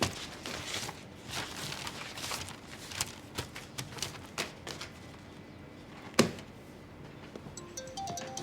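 Scattered knocks and clatter, with one louder knock about six seconds in. Soft music notes begin near the end.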